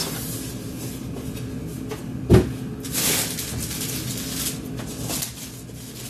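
Unpacking sounds: a cardboard box and a plastic-bagged mini fridge being handled, with one dull thump a little over two seconds in, then rustling of the plastic bag.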